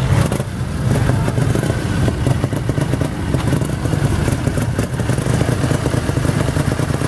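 Vintage motorcycle engine running at a steady speed, a rapid, even firing beat with no revving.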